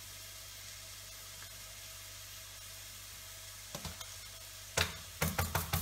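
Onions sizzling gently in oil in a saucepan, a steady faint hiss. Near the end, a halved red bell pepper is knocked against the worktop to shake its seeds loose: a couple of knocks, one loud knock, then a quick run of tapping.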